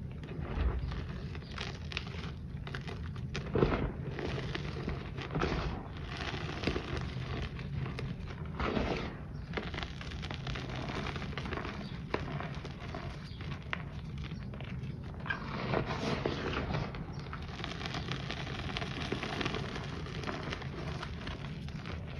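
Hands crushing and crumbling chunks of reformed powder over loose powder: a continuous soft crackle and powdery rustle, with several louder crunches.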